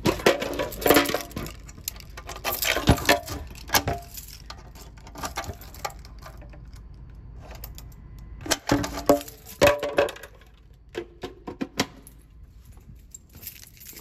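A bunch of keys jangling and clinking in a hand, in bursts near the start and again about two-thirds of the way through, with clacks from a clear plastic protective cover over a fire alarm pull station being lifted.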